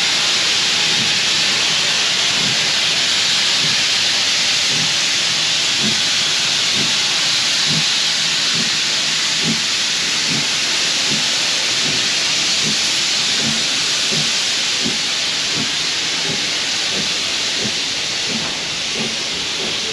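Steam locomotive letting off a loud, steady hiss of steam, with a faint low beat about twice a second underneath from about a quarter of the way in.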